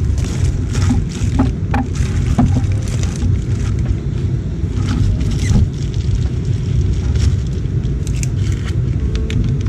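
Bubble wrap crinkling and crackling in short bursts as it is handled, over a steady low rumble.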